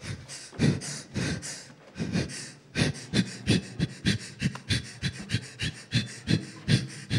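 A woman panting hard into a handheld microphone held close to her mouth: short gasping breaths, spaced out at first, then quickening to about three a second.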